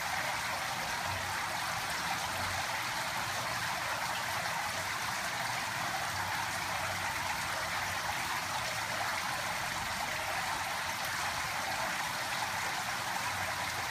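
Running water, a steady unbroken splashing that does not change.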